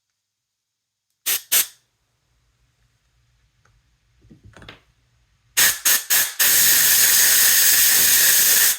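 Scubapro Air 2 regulator under air pressure, releasing air in short rushes: two about a second in, a few more near the middle, then a steady hiss of about two seconds that cuts off sharply. Its adjustment screw is set just short of free flow.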